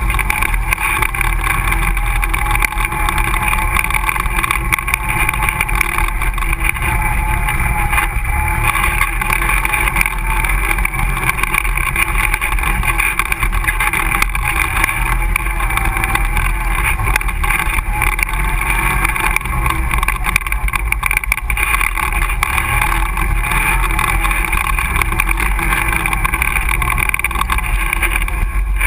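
Can-Am ATV engine running steadily under way on a dirt trail, its pitch wavering slightly with the throttle.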